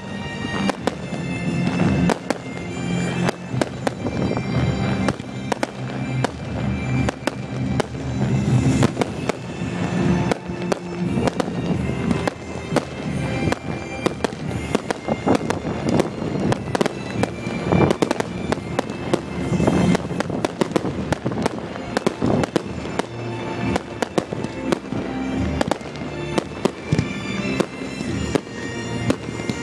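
Fireworks display going off without a break: dense, rapid bangs and crackling bursts, with music playing underneath.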